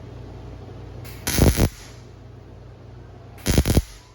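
TIG welding arc struck twice in short crackling bursts of about half a second each, over the steady hum of the welding machine. The arc is started on the existing weld bead and dragged out to fill a gap in thin sheet metal.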